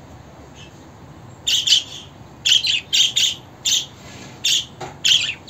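Budgerigar chirping: a string of about nine short, sharp chirps, some in quick pairs, starting about a second and a half in.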